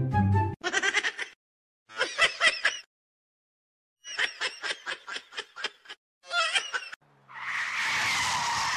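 Several short spurts of rapid, pulsed snickering laughter, then a steady wash of sea waves from about seven seconds in.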